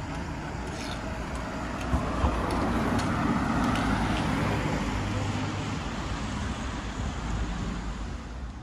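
A car driving past close by, its engine and tyre noise swelling about three seconds in and then slowly fading as it moves away, over steady street hum. Two short knocks sound just before it comes closest.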